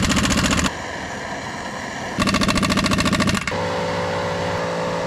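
Rapid mechanical pulsing, like a power tool or motor running, in short cut-together stretches. It changes abruptly about a second in and again about halfway through, and near the end gives way to a steadier running sound with held tones.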